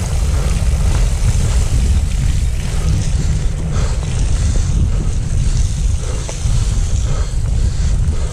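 Steady low rumble of wind buffeting the handlebar camera's microphone, mixed with mountain-bike tyres rolling fast over a damp dirt trail, with a few small knocks from bumps.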